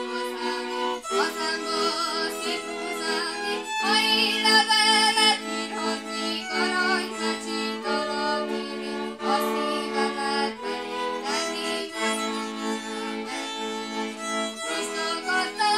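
Two violins playing a Hungarian folk song from Transylvania, sounding held double-stop chords that change every second or two beneath a wavering melody, with a woman singing.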